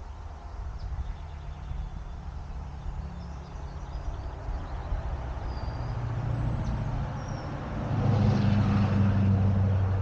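A motor vehicle's engine hum grows steadily louder and is loudest about eight seconds in as it passes.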